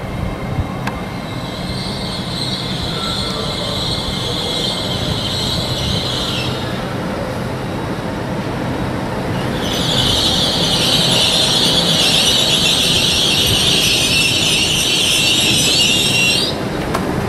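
LNER Class 800 Azuma train slowing into a platform and stopping, its brakes giving a high-pitched squeal over a low rumble. The squeal comes in two stretches, the second louder, and cuts off suddenly as the train comes to a stand.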